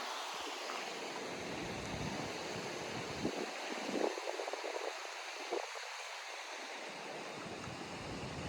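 Steady rush of falling water from the Gljúfrafoss waterfall, with gusts of wind buffeting the microphone that drop away for a few seconds in the middle.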